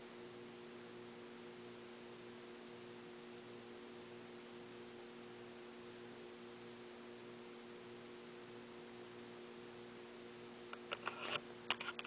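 Faint steady electrical hum with a low hiss, then a scatter of short clicks and knocks near the end.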